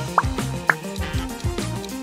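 Upbeat background music with a repeating bass line and a steady beat. Two short upward-sliding blips sound in the first second.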